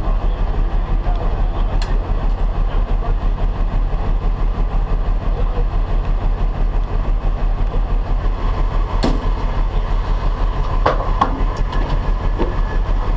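Tow truck's diesel engine running steadily, a loud low rumble with an even rapid pulse, heard close by; a couple of short knocks come about two-thirds of the way through.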